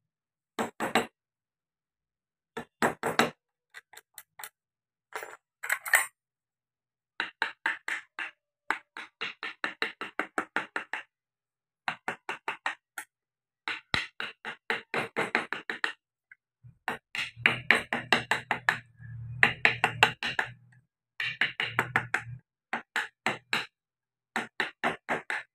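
Wood-carving chisels and a round gouge being struck in quick, light taps to rough out a carved face in wood, in runs of about three or four taps a second with short pauses between. A low hum sounds under some of the taps in the second half.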